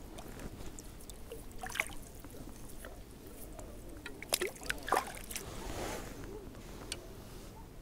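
Light splashing and dripping water as a small crucian carp is handled and let into a keepnet in shallow water, with small handling clicks and two short sharp sounds about four and five seconds in.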